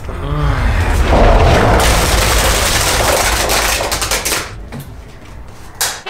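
A load of eggs pouring down and smashing onto the kitchen floor: a loud crashing rush that lasts about four seconds and then dies away, with a short shout at the start and a sharp knock near the end.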